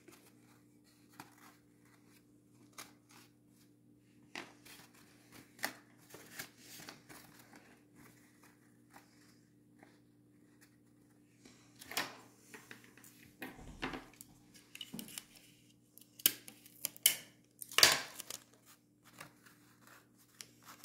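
Sheet of printer paper being folded, bent and creased by hand: soft scattered rustles with a few louder crackles about twelve seconds in and again near the end.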